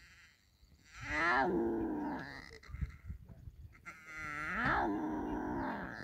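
Lion cub calling: two drawn-out calls with a wavering pitch, the first starting about a second in, the second just before four seconds.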